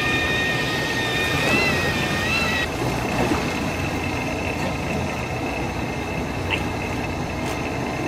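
Boat engine and sea noise running steadily under a high, steady whine. The whine wavers about a second and a half in, then changes to a single steadier tone near three seconds in.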